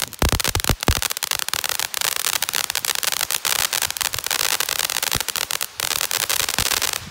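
Miracle Fireworks 'Ice Cream' ground fountain burning: a steady hiss of spark spray under dense crackling, with a few heavier pops in the first second. The fountain cuts off near the end as it burns out.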